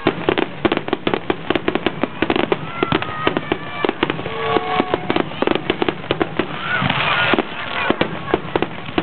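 Fireworks finale: a rapid barrage of aerial shells bursting, several sharp bangs a second, with a thick crackle about seven seconds in.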